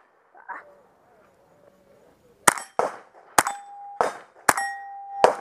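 Rapid string of six gunshots starting about two and a half seconds in, with steel target plates ringing after some of them: the ringing is the sign of hits on the steel.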